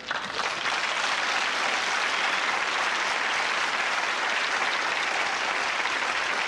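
Studio audience applauding steadily, a dense, even clapping that starts abruptly and does not let up.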